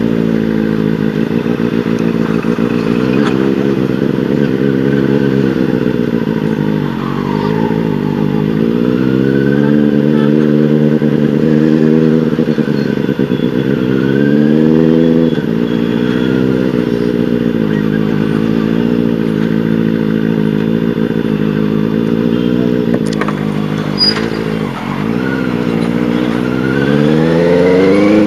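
Benelli 600i inline-four engine through a loud aftermarket IXIL exhaust, ridden in traffic. The engine note repeatedly climbs as the throttle opens and falls back as it closes, with a final rising rev near the end.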